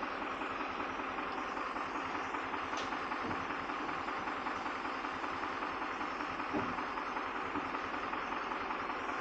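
A motor or engine running steadily with an even drone, with a couple of faint knocks, the louder one about six and a half seconds in.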